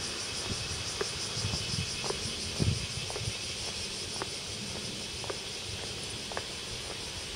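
Footsteps of someone walking at a steady pace, about two steps a second, heard as light regular clicks over a steady high hiss and an irregular low rumble.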